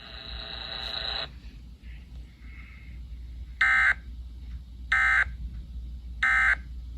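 Three short, identical data-tone bursts from a NOAA Weather Radio broadcast, just over a second apart: the SAME end-of-message code that closes a severe thunderstorm warning. Before them, a steady electronic buzz cuts off about a second in.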